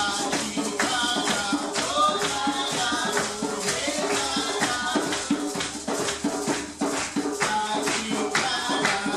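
Live percussion music: a shaker rattling a quick, steady rhythm over drum strokes, with a pitched melody line gliding above it.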